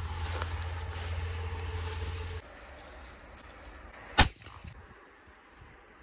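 A steady low rumble that cuts off suddenly about two and a half seconds in, then a single sharp gunshot about four seconds in, with a short echo after it.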